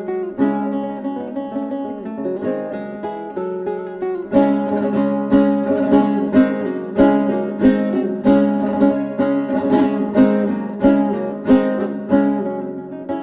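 Background music played on acoustic guitar: plucked notes and strummed chords, becoming fuller and louder about four seconds in.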